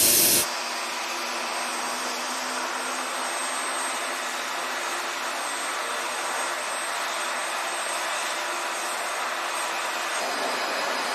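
Steady whooshing turbine noise with a faint high whine, from aircraft engines running on a carrier flight deck. A louder jet roar cuts off abruptly about half a second in, leaving the steadier hiss.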